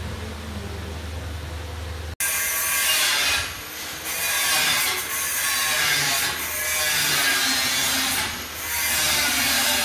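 Workshop machinery running: a steady low electric hum, then after a sudden cut about two seconds in, a loud, harsh grinding noise like a power tool cutting, dipping briefly twice.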